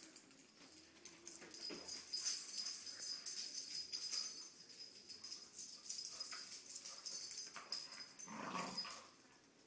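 A Staffy dog's collar tags jingling and its claws clicking on a hardwood floor as it runs about during a game of fetch, with a brief lower sound about eight and a half seconds in.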